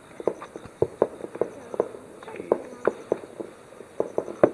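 A quick, irregular series of short knocks, about two to four a second, with one louder knock near the end.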